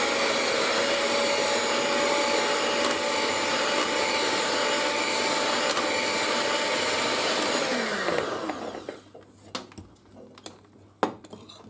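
Electric hand mixer running at a steady pitch, its beaters whipping cream and icing sugar in a stainless steel bowl. About eight seconds in the motor is switched off and winds down with a falling pitch, followed by a few sharp taps.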